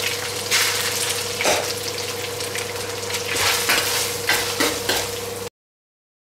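Rice and whole spices sizzling in hot ghee in a steel pan, stirred with a metal spoon that clinks and scrapes against the pan a few times. The sound cuts off suddenly near the end.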